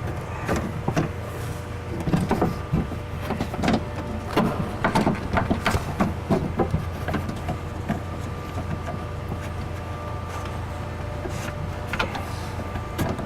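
Scattered clicks, knocks and rattles of a new window regulator being worked into position inside a car door, over a steady low hum. A faint steady whine joins about halfway through.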